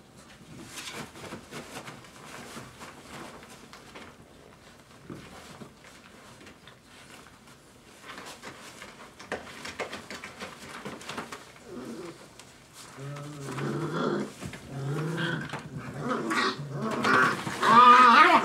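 Five-week-old Dogo Argentino puppies scuffling in play, with faint scratchy clicks at first, then play-growls starting about two-thirds of the way through and building to a loud, high, wavering whine near the end.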